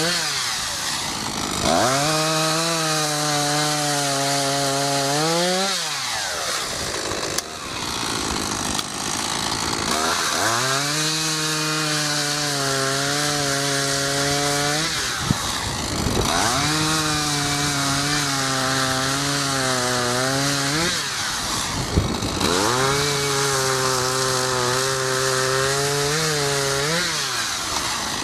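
Echo CS-500P 50.2 cc two-stroke chainsaw cutting wood at full throttle. Its pitch drops as the chain bites and labours under load, holds through each cut, then rises as the saw frees. This happens four times, with higher revving between cuts.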